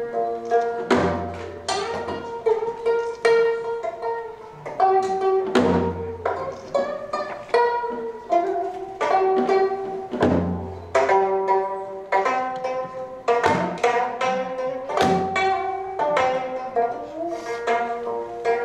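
Gayageum, the Korean plucked zither, playing an instrumental passage between sung verses: a run of plucked notes, each ringing and fading, with a deep low note about every four to five seconds.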